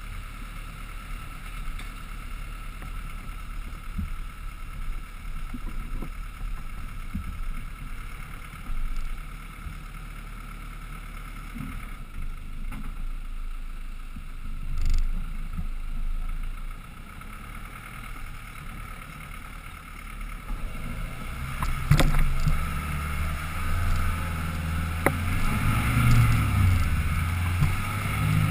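Land Rover Defender 110's engine running at low revs on a rough uphill climb, picked up by a roof-mounted camera with some wind on the microphone. About two-thirds of the way through, the engine pulls harder and gets louder under load, and a couple of sharp knocks sound as the vehicle works over the terrain.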